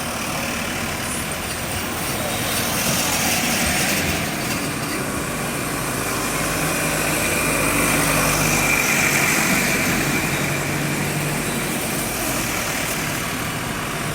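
A motor vehicle's engine running steadily among general outdoor noise.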